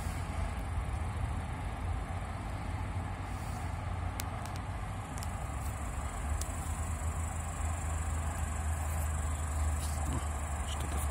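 Steady low rumble of distant road traffic, with a high, steady insect buzz joining about halfway through.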